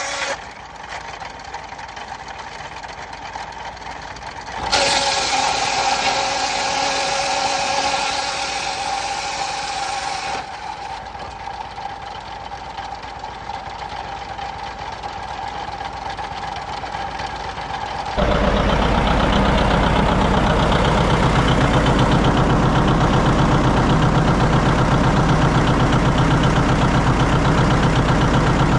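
Vintage tractor engines running belt-driven sawmill machinery, in several clips that change abruptly; one middle stretch carries a steady high whine. From about eighteen seconds in it is louder, with a steady low engine beat.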